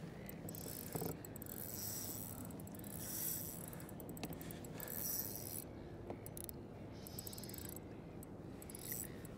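Spinning fishing reel working quietly, its mechanism whirring and clicking as a hooked bream is played on light tackle.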